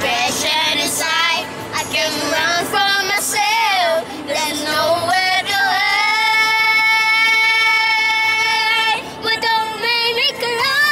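A high voice singing a song over music, with a long note held for about three seconds in the middle.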